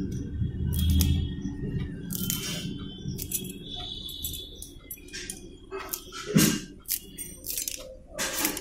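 Kitchen scissors snipping a green chilli into small pieces: a run of irregular sharp clicks, the loudest about six and a half seconds in.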